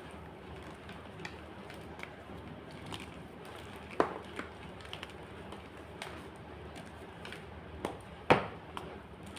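White gym chalk being crushed: scattered sharp crunches over a steady background hiss, the two loudest about four seconds in and near the end.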